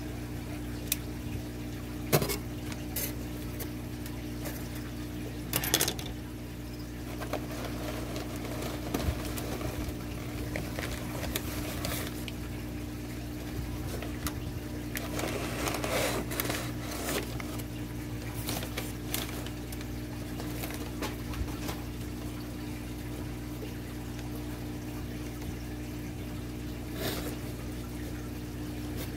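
Crumpled packing paper and cardboard box flaps rustling and crackling as a shipping box is unpacked by hand, with a few sharp knocks and cracks. Underneath runs a steady low hum with water bubbling from an aquarium's air stone.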